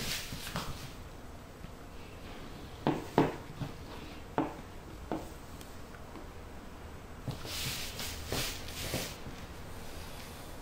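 Plastic pry tool working into the seam between a fourth-generation iPod Classic's chrome back and its plastic front: a few short sharp clicks, then a scraping rustle for about two seconds near the end.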